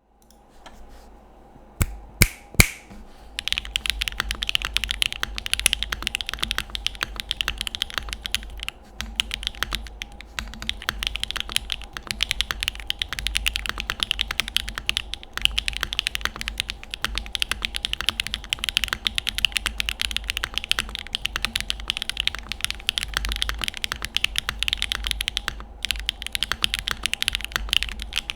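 Mechanical keyboard typing on a Mode Envoy with stock HMX Xinhai switches, GMK keycaps and a carbon fiber plate. A few loud single keystrokes about two seconds in, then fast continuous typing with only brief pauses.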